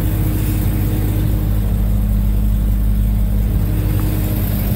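Jeep Cherokee XJ engine idling steadily after a cold start in freezing weather.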